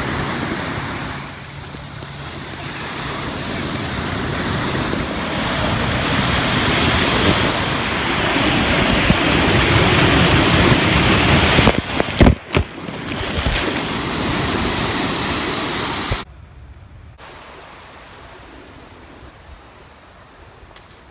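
Ocean surf breaking and rushing up a sandy beach, its loudness swelling and falling with the waves, with wind on the microphone and a couple of sharp knocks about twelve seconds in. About sixteen seconds in it cuts to a much quieter, steady wash of calm sea.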